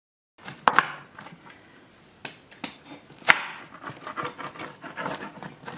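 A pizza being cut on a stoneware baking stone: a pizza cutter knocking and scraping against the stone, with a few sharp clacks. It starts abruptly about half a second in.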